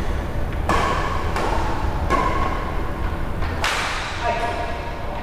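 Badminton rackets hitting a shuttlecock during a rally: four sharp smacks, the first three in quick succession and the last after a longer pause, each echoing in a large hall.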